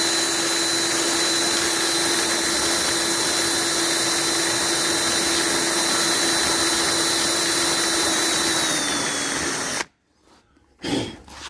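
Electric drill with a rounded-tip bit running steadily at constant speed, taking rust and body filler off car body metal. It slows slightly and stops about ten seconds in, and a few faint clicks follow.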